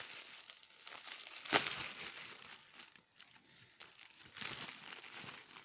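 Packaging crinkling and rustling as a delivery box is unpacked by hand, with one sharp crackle about a second and a half in and another stretch of rustling near the end.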